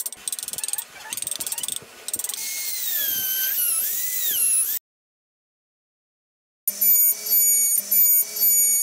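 Rapid ticking and scraping, then a handheld electric rotary tool drilling small holes in wood, its whine sliding down and back up in pitch as the bit loads. After a short silence the rotary tool runs again in a few short bursts.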